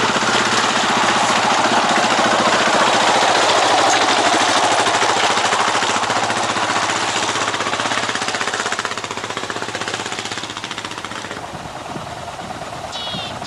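Stock Yamaha Ténéré 600's single-cylinder four-stroke engine pulling hard as the trail bike climbs a steep snowy track past the camera, its firing pulses loud and rapid, then fading away in the last few seconds.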